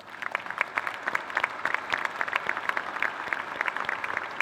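Audience applause: many people clapping, starting abruptly and continuing steadily.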